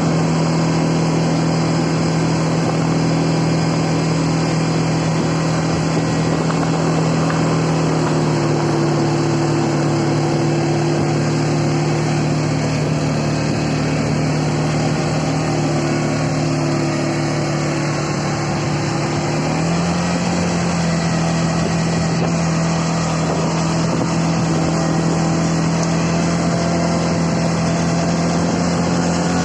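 CFMoto CForce 520L ATV's single-cylinder four-stroke engine running steadily while driving, its pitch dipping slightly about eight seconds in and rising again about twenty seconds in.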